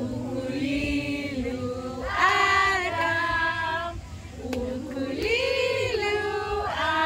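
Several women singing together without instruments, in phrases of long held notes.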